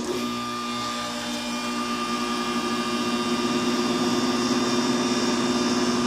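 Haier window air conditioner starting up on low fan speed and running with a steady hum, growing louder over the first few seconds as it comes up to speed. It is running on 24 V battery power through a converted UPS inverter.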